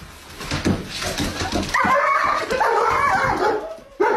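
A dog whining and yelping in a high, wavering voice for about two seconds, after a few knocks and scuffles. Another whine starts abruptly near the end.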